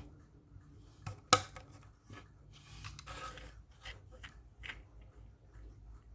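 3D-printed plastic fidget toy handled and worked by hand: a few sharp plastic clicks, the loudest just over a second in, and a short sliding rub of its parts about three seconds in.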